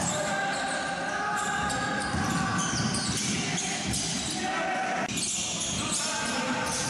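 Basketball game on a hardwood court: the ball bouncing and players' voices, with an abrupt break in the sound about five seconds in.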